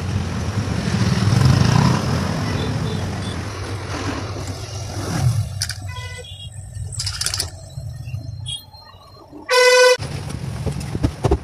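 Street traffic running past, with a few short horn toots in the middle and a loud vehicle horn blaring for about half a second near the end.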